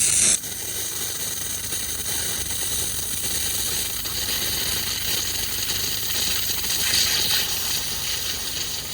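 A generator and air compressor running steadily, with a steady hiss of air over a low hum.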